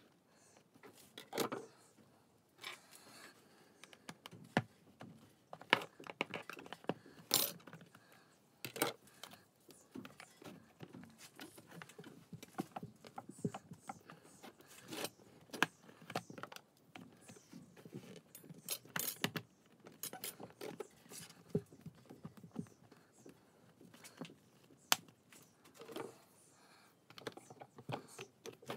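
White plastic glazing beads being handled and pressed into a window frame: irregular sharp clicks, taps and light rattles of plastic against the frame.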